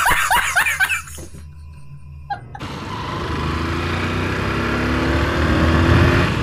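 A man's loud burst of laughter, rapid "ha-ha" pulses that cut off about a second in. After a short lull, a motorcycle riding along with road and wind rush, its engine note rising steadily as it speeds up.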